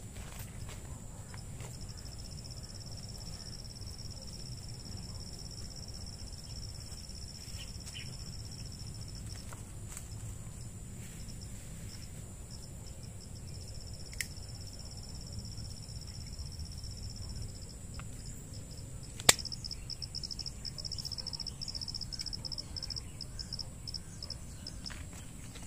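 Insects, crickets by the sound of it, trilling in one high thin tone. The trill breaks off a few times and turns into rapid pulsing near the end, over a low rumble. There is one sharp click about three-quarters of the way through.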